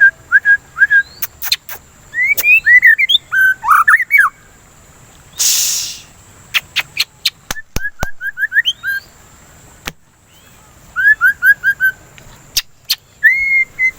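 White-rumped shama (murai batu) singing: quick runs of short, falling whistled notes in groups of four or five, with a burst of louder twisting phrases about two to four seconds in and a rising-then-falling whistle near the end. Sharp clicks come in among the song, and a brief hiss sounds about halfway through.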